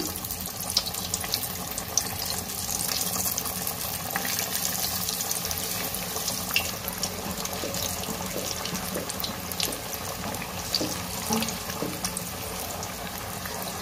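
Banana-flower (vazhaipoo) vadas, patties of coarsely ground chana dal batter, deep-frying in hot oil in a wok: a steady sizzle and bubbling hiss with many small crackles.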